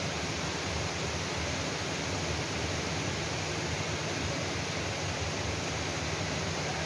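Heavy rain falling steadily, a constant even hiss with no distinct drops or breaks.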